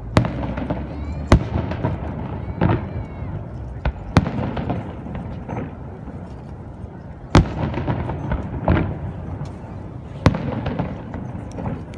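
Aerial fireworks bursting overhead: about eight sharp bangs at uneven intervals, a second or two apart, with a continuous low rumble and crackle between them.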